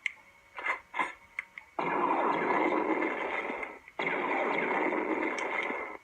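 Flamethrower sound effect from a prop blaster's small built-in speaker: two hissing blasts of about two seconds each, back to back, after a few short clicks.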